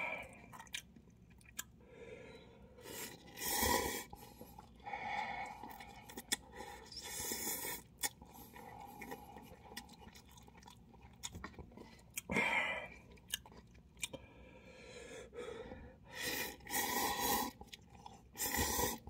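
A person eating instant cup ramen: several slurps of noodles, each about a second long, with chewing and wet mouth clicks in between.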